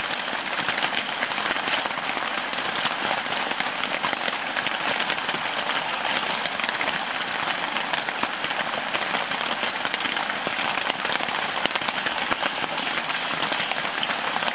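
Steady rain falling on the tent fabric, heard from inside the tent: a dense, even hiss with many fine ticks of drops.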